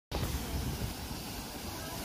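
Water rushing steadily as it pours through a closed canal lock gate into the lower lock chamber, filling it.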